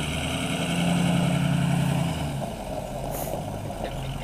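Straight-piped 6.0-litre Powerstroke V8 turbo-diesel of a Ford Super Duty pickup running as the truck rolls slowly along; the engine note swells for a second or so, then settles back toward idle.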